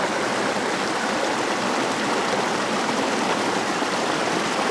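Creek water running steadily: an even, unbroken rush of flowing water.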